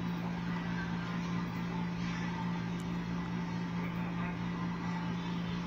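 Steady low background hum with an even hiss, unchanging throughout, with a couple of faint small ticks.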